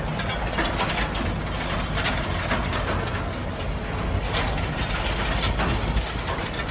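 Heavy vehicle noise: a steady low engine rumble under dense, irregular rattling and clattering.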